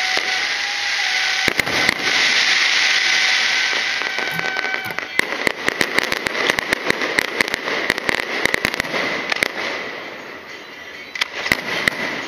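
Aerial fireworks going off: a loud continuous hiss, then from about five seconds in a dense, rapid crackle of many sharp pops that thins out near the end.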